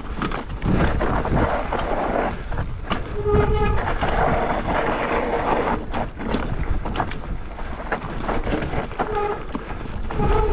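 Mountain bike riding fast down a rough trail: wind and tyre rumble with rattling knocks from the bike over rocks, and short brake squeals about three seconds in and twice near the end.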